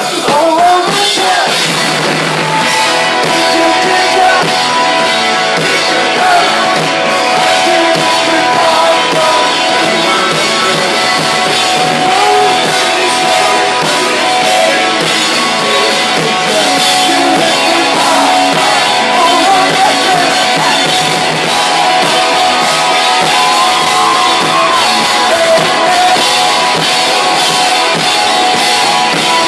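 Live rock band playing loud, with drums, keyboards and guitar under a lead singer's vocal.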